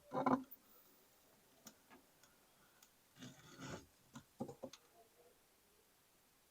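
A pet turtle biting and chewing its food: a short crunch at the start, a longer crunching bite around three seconds in, then a few quick clicks.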